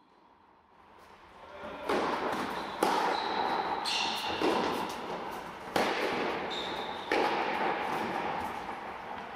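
Tennis balls struck by rackets and bouncing on the court during a rally in a large indoor hall, each hit a sharp pop followed by a ringing echo. The sound fades in over the first two seconds, with several hits spaced about one to three seconds apart.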